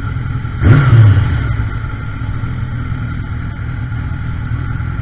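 2003 Kawasaki ZZR1200's inline-four engine running at low speed, with a sudden short rev about a second in that quickly settles back to a steady hum.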